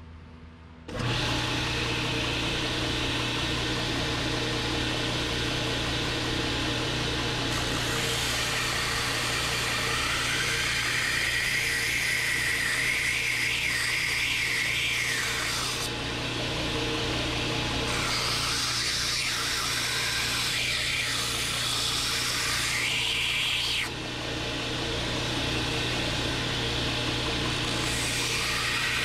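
Belt grinder running with a steel knife blade held against the slack belt, coming in abruptly about a second in. Over the motor's steady hum the grinding hiss swells and fades in several passes as the blade's convex edge is blended in.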